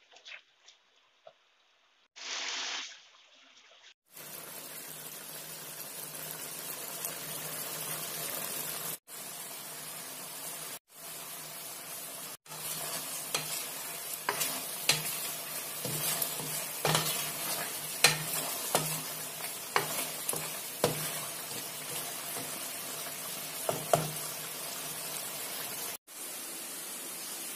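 Chicken sizzling in a thick sauce in a wok, a steady hiss, with a spatula scraping and knocking against the pan from about halfway through.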